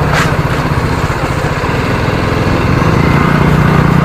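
TVS Apache RR310's single-cylinder engine running steadily, getting a little louder about three seconds in, with a brief hiss near the start.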